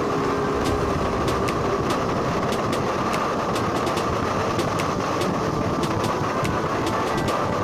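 Motorcycle riding at a steady cruising speed: engine running with wind and road noise rushing over the camera microphone, with light irregular ticks.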